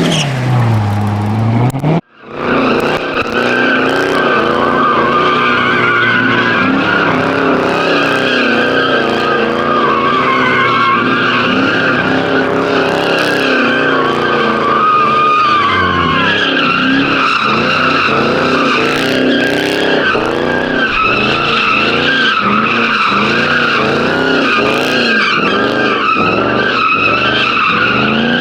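A car spinning its tyres in a sustained burnout. The tyres squeal steadily over a high-revving engine whose pitch wavers up and down. The sound breaks off abruptly about two seconds in, then resumes.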